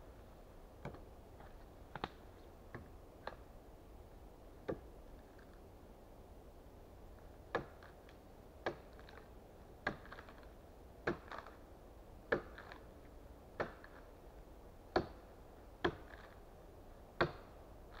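Small axe chopping wood: a series of sharp, short chops, a few scattered strikes at first, then a regular stroke about once a second through the second half, the later strikes louder.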